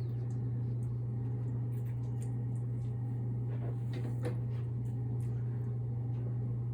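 A steady low hum, with a few faint clicks about four seconds in.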